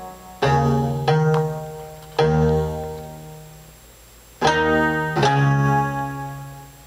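Electronic keyboard playing slow chords: five struck, each left to ring and fade before the next, with a pause of about two seconds in the middle.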